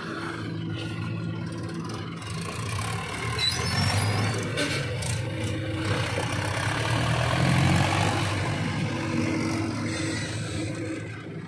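Mahindra tractor's diesel engine pulling away with a trolley fully loaded with soil. It grows louder about three to four seconds in as the engine takes the load, peaks around eight seconds, then eases off near the end.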